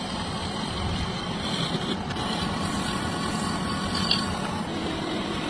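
Steady running noise of a machine, with a short high tone about four seconds in.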